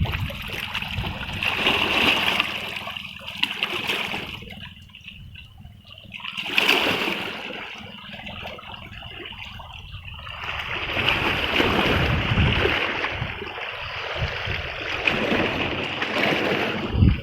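River water rushing and splashing, swelling and easing over several seconds.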